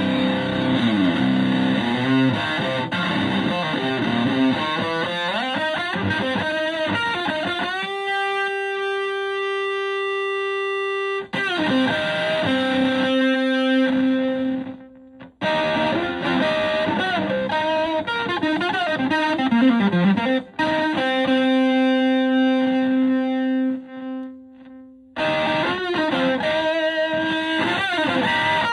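Fender Stratocaster played through a Buzzaround-style fuzz pedal into a Fender Twin Reverb–style amp: distorted lead lines with string bends and several long, sustained fuzzy notes, broken by a couple of short pauses.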